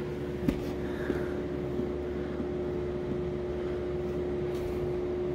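Steady mechanical hum holding one tone throughout, with a light click about half a second in as a carbon fiber trim strip is pressed onto the plastic door panel.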